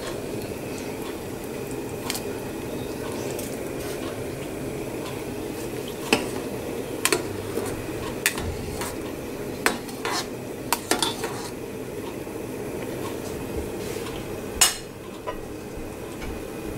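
Metal ladle stirring soup in a stainless steel pot, with scattered clinks of the ladle against the pot, over the steady bubbling of the soup on the boil.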